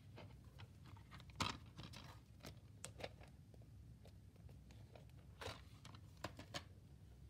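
Plastic DVD case being handled, opened and shut: a scatter of faint clicks and rustles, the loudest about a second and a half in and again about five and a half seconds in.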